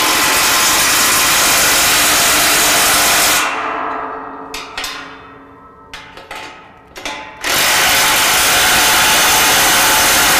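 DeWalt cordless impact driver hammering 19 mm bolts tight on a grille guard bracket, in two long bursts of about four seconds each with a few short spurts between.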